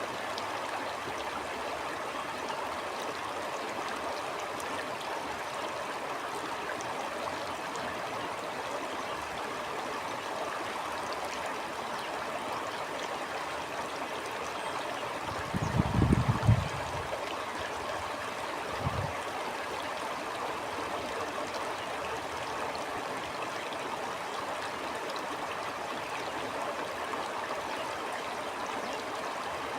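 A stream flowing steadily, an even rushing and gurgling of water. Just past halfway a low rumble rises for about a second, the loudest moment, and a shorter one follows about three seconds later.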